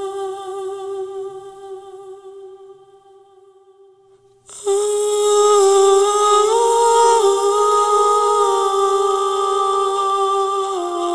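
Soundtrack music of long held, hum-like vocal notes: one note fades away over the first four seconds, then a louder held line comes in suddenly and steps slowly between a few pitches.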